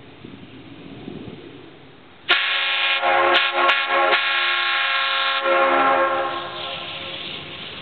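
Homemade PVC air horns sounding a train-horn chord of several tones at once: one loud blast of about three seconds starting a couple of seconds in, broken briefly twice. It then fades off as its echo from the woods dies away.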